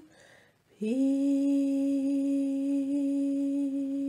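A woman's voice chanting one long held note, scooping up into it about a second in and holding it steady: the final word, "peace", of a chanted blessing.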